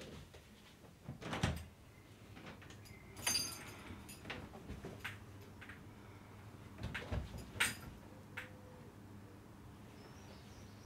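A front door being unlatched and opened: several separate knocks and clicks from the handle and latch, spread out over a few seconds, with softer rustles in between.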